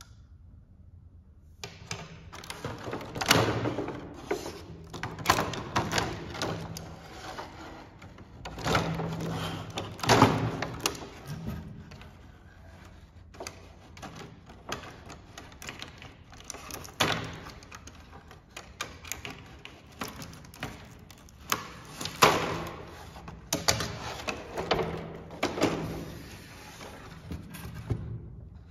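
Clear plastic blister packaging of a toy set crinkling and crackling as it is handled and lifted, in irregular crackles with some sharper cracks. It starts after a short quiet, about a second and a half in.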